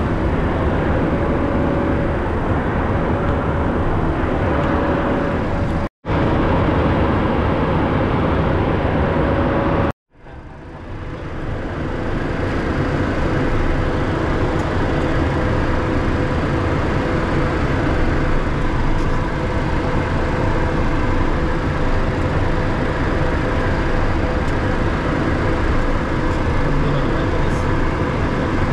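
Steady cockpit noise of a Cessna Citation II in cruise: airflow over the cockpit and its twin turbofan engines running, with a steady mid-pitched hum. The sound cuts to silence twice, about six and ten seconds in, fading back up over a couple of seconds after the second cut.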